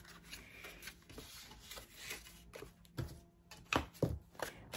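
Cardstock being handled and pressed along its folds by hand: soft rustling with scattered light clicks, and a few sharper taps about three to four and a half seconds in.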